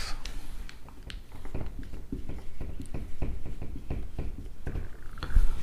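Marker writing on a whiteboard: irregular light taps and scratches of the tip on the board, with a louder low thump near the end.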